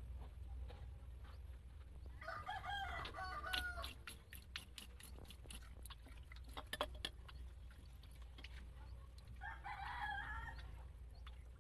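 A rooster crowing twice, once about two seconds in and again near the end, with a quick run of sharp clicks in between.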